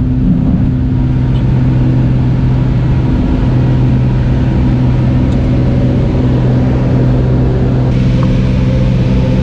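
Small single-engine propeller plane's engine and propeller droning loudly and steadily, heard from inside the cabin, with a constant low hum.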